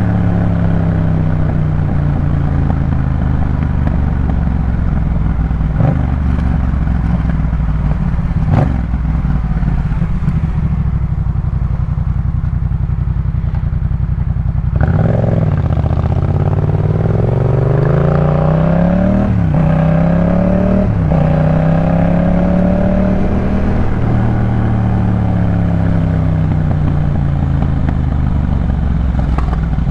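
Yamaha MT-07's 689 cc 270° parallel-twin through a Jeskap K4 full aftermarket exhaust, ridden: steady at first, then about halfway in the engine note dips and climbs as it accelerates, with the pitch rising and dropping sharply at two quick upshifts, before it settles and slowly falls away near the end.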